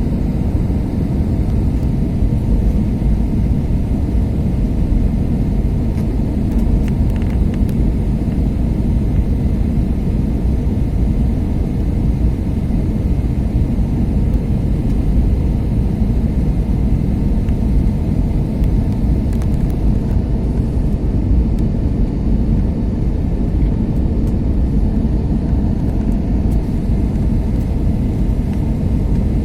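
Airliner cabin noise in flight: the steady, low rumble of the jet engines and the airflow over the fuselage, heard from inside the passenger cabin.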